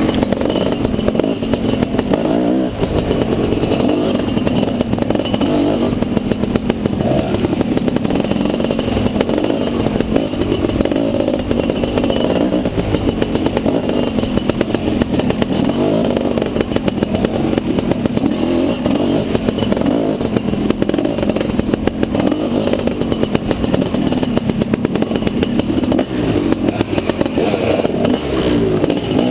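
Dirt bike engine running hard on a trail, its pitch rising and falling continuously as the throttle opens and closes.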